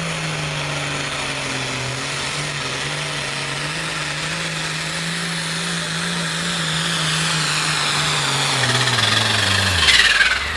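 Ford pulling tractor's engine under full load dragging the sled, a steady drone with a faint high whine above it. Near the end the engine pitch sinks as it bogs down, followed by a short loud hissing burst.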